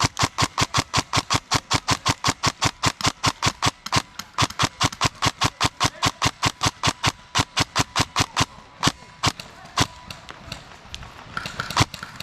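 Specna Arms E26 MK18 electric airsoft rifle firing a long, rapid string of shots, about seven a second. After about eight seconds it slows to a few single shots.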